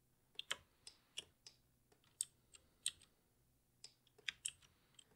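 Faint computer keyboard and mouse clicks, about ten short isolated clicks at irregular intervals.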